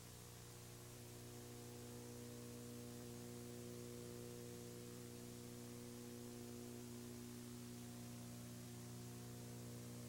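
Steady low electrical hum with several evenly spaced higher overtones, over a faint even hiss.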